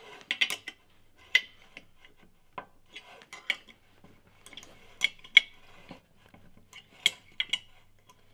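Small steel wrench clicking and clinking on the turbine-housing bolts of a Garrett GTX3582 turbocharger as they are snugged down, irregular sharp metallic clicks with a short ring.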